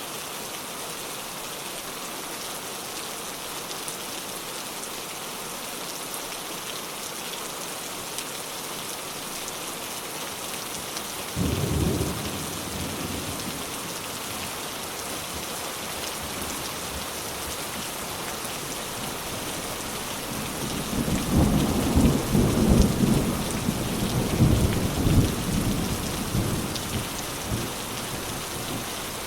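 Steady rain falling, with thunder: a sudden rumble a little under halfway through that fades off, then a longer, louder rolling rumble in the last third.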